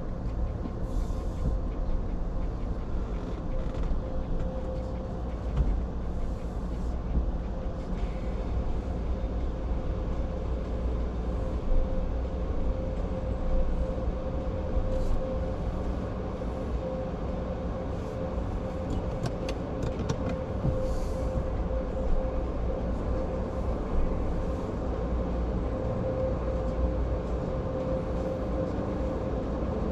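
Steady low rumble of a car idling, heard from inside its cabin, with a thin steady hum running underneath and a few faint clicks.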